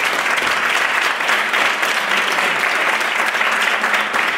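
An audience applauding steadily: many hands clapping at once in a dense, even patter.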